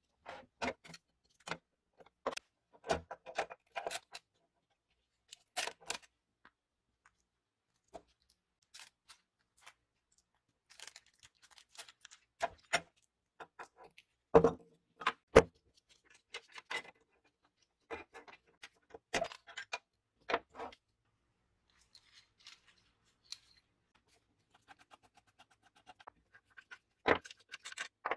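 Metal parts of a vintage 3M Scotch M-96 tape dispenser being handled and taken apart by hand: irregular clicks, clinks and knocks with short pauses between them, the loudest knocks about halfway through.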